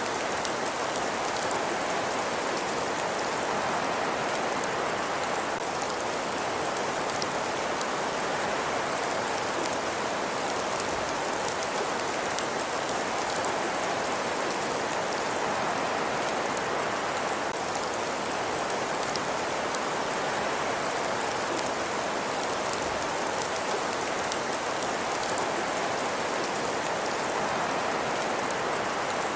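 A wood fire crackling: a steady hiss sprinkled with many small pops and crackles.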